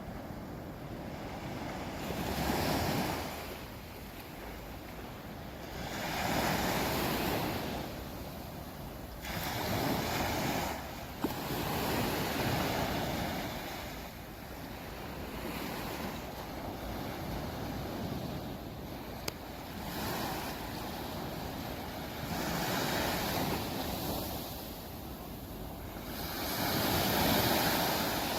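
Sea waves breaking on a beach, the surf swelling and washing in every few seconds over a steady hiss, with some wind on the microphone.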